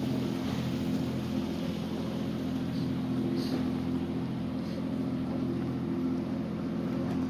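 Sailing catamaran's engine running steadily as the boat motors along, under a steady hiss of wind and water.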